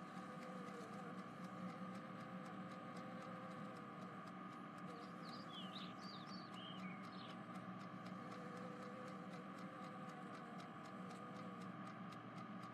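Faint steady background hum and hiss, with a few short, high, falling chirps near the middle.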